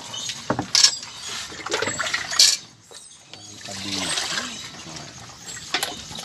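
Water pouring and splashing as metal pots and a bowl are rinsed at a sink, with several sharp metallic clinks, the loudest about two and a half seconds in.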